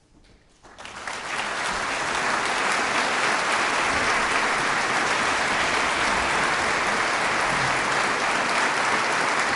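Concert audience applauding: a few first claps under a second in, then full applause swelling within about a second and holding steady.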